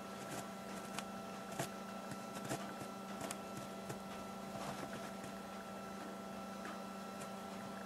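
Kittens moving on a bedsheet close to the microphone: scattered soft rustles and clicks, the loudest about a second and a half in and again a second later, over a steady hum.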